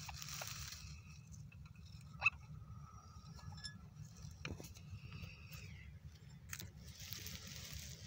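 Soft rustling and scattered small clicks over a low steady rumble, with one short sharp click about two seconds in and a louder burst of rustling near the end.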